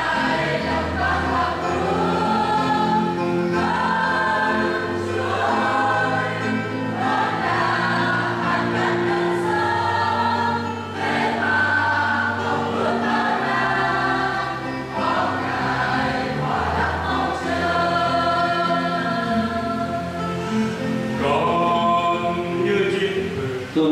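A choir singing a hymn in sustained, held notes.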